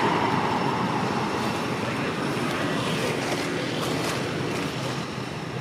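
Steady background noise of road traffic, slowly growing fainter, with a few faint ticks in the middle.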